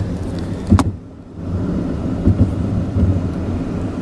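Steady low rumble of road and engine noise heard inside a moving car's cabin. There is one sharp thump about three-quarters of a second in, and a couple of smaller knocks a little past halfway.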